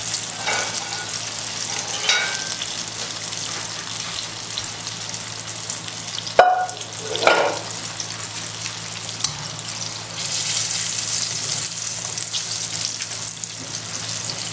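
Hot oil sizzling steadily around cornstarch-and-egg-coated tofu cubes deep-frying in a wok, now golden and ready to lift out. A few short knocks come near the start and a little past six seconds, and the sizzle grows louder about ten seconds in as a wire strainer is worked into the oil.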